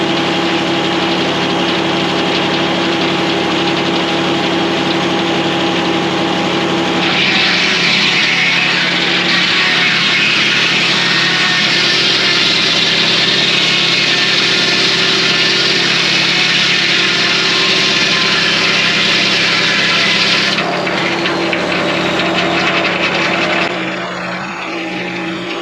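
Circle sawmill running on a diesel engine with a steady hum. About seven seconds in, the blade enters a hemlock log, and a loud, high-pitched sawing noise rides over the engine for about thirteen seconds. Then the blade runs free again.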